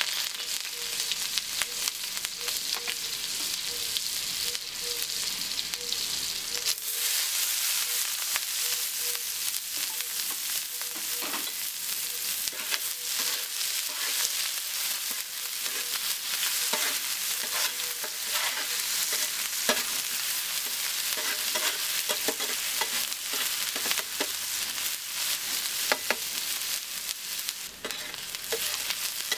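Hot ghee sizzling on an iron tawa as ginger-garlic paste and chopped onions fry, the sizzle growing louder about seven seconds in. A metal spatula scrapes and clicks against the griddle as the onions are stirred toward golden brown.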